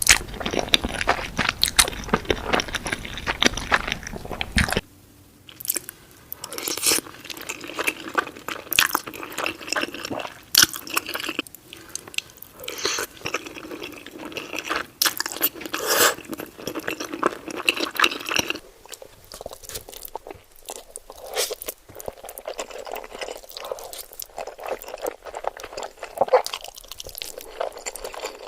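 Person chewing spaghetti, wet irregular mouth clicks and squishing. The sound changes abruptly about five seconds in and again near nineteen seconds, as a different eater takes over.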